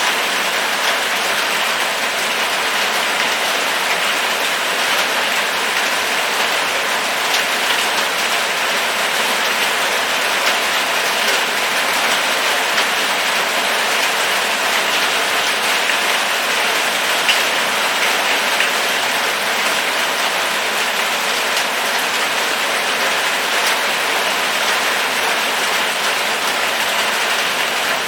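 Steady heavy rain falling and pattering on surfaces, an even dense hiss with many small drop ticks throughout.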